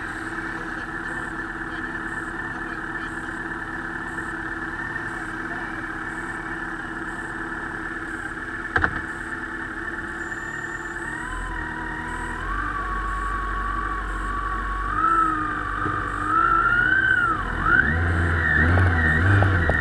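Yamaha Ténéré motorcycle engine idling steadily, then revving with rising and falling pitch and getting louder as the bike pulls away near the end. A single sharp click comes a little under halfway through.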